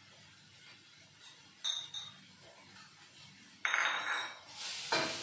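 Kitchenware clinking, once lightly and once louder, then near the end a loud sizzle as the spice paste fries in the hot wok, with rhythmic spatula strokes against the pan.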